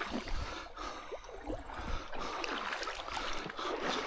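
Irregular small splashes and sloshing as a hooked trout thrashes at the surface of a shallow stream, over the stream's trickle.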